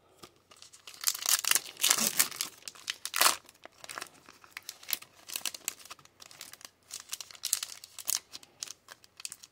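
Foil wrapper of an Upper Deck hockey card pack crinkling as it is handled and torn open, loudest in a run of crackles over the first few seconds, then lighter scattered crinkling as the cards are pulled out.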